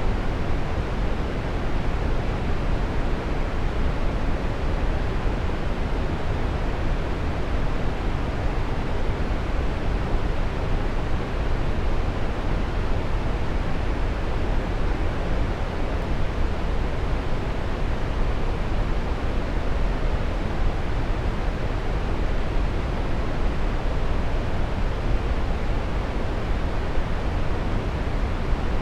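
Waterfall: water pouring and splashing in a steady, unbroken rush, heaviest in the low range.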